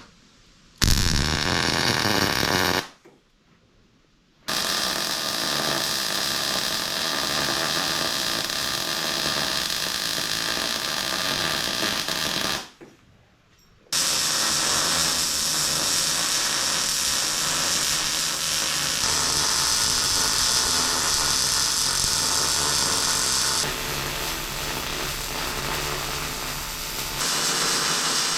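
A handheld power tool running on steel stock in three long steady runs, broken by two short pauses, one near the start and one about halfway through, with a small change in tone near the end.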